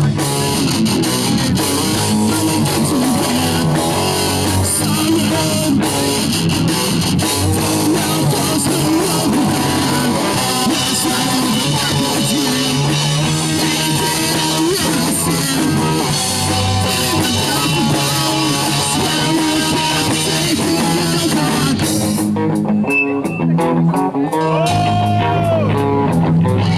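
Hardcore band playing live: electric guitars, bass guitar and drum kit. About 22 seconds in the drums drop out and a guitar carries on alone with a note bent up and down, before the full band comes back in near the end.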